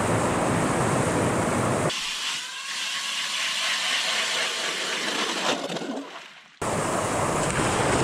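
Hand ice auger boring into lake ice: a steady scraping hiss in the middle of the clip. Before and after it comes a rougher, fuller noise with more low end.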